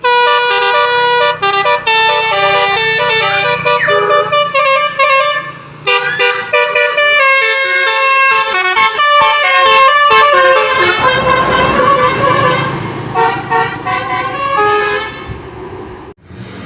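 Basuri musical horn on a passing vehicle playing a stepped melody of several tones at once, with a short break about six seconds in. From about two-thirds of the way through, the rush of the vehicle going by rises under the horn notes, which stop shortly before the end.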